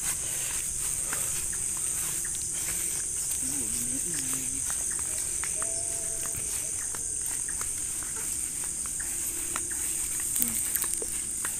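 Steady high-pitched chorus of night insects, with scattered light footsteps brushing through grass.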